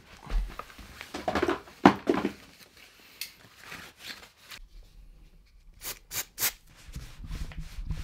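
Cloth rag rubbing and wiping over a mountain bike frame in uneven strokes, cleaning off dirt and spray cleaner, with three sharp clicks about six seconds in.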